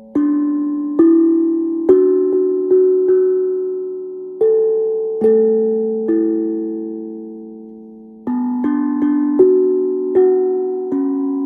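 Steel tongue drum struck with mallets, playing a slow melody one or two notes at a time, each note ringing on and fading away before the next. One note is left to ring for about two seconds in the middle before a pair of notes is struck together.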